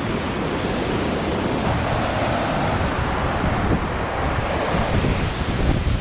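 Steady rush of a waterfall and whitewater in a river gorge, with wind buffeting the microphone in gusts that grow stronger near the end.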